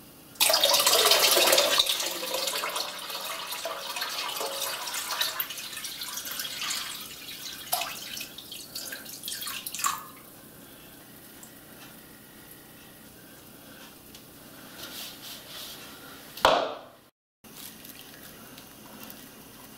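Water poured from a plastic jug into a soldered brass tank for a water-tightness test: a loud gush at first, then a steady pour that thins to trickles and drips about ten seconds in. A brief loud noise and a short cut-out come near the end.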